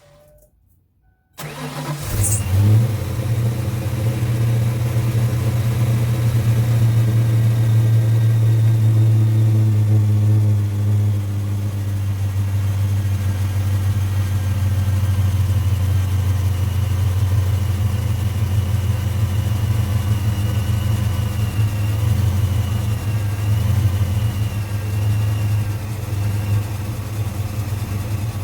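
1995 Ford Mustang engine cold-started: it cranks and catches about a second and a half in, then settles into a steady idle, its pitch easing down a little as it runs. The car is started to check that a repaired braided fuel line doesn't leak.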